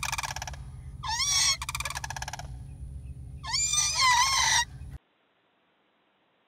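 Sandhill cranes calling: three bouts of loud, rolling, rattling bugle calls that cut off suddenly about five seconds in.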